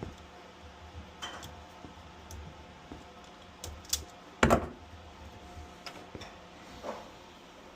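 Scattered clicks and knocks of objects being handled, with one sharper, louder knock about halfway through.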